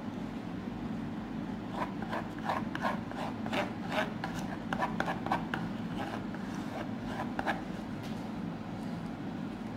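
Metal spoon scraping and clicking against the sides of a plastic bowl while stirring a thick slime paste, in short irregular strokes about two or three a second that start about two seconds in and stop near the end.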